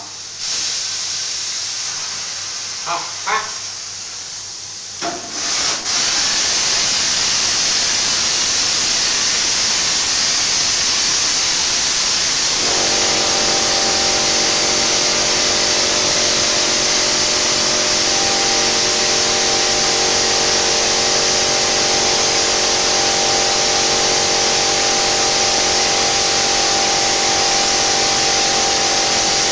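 Air-atomising spray gun of an EZ-sa 1301 lime putty mortar sprayer spraying mortar onto a wall. It makes a steady hiss that grows much louder about five seconds in and then holds. A little before halfway, a steady machine hum joins under the hiss.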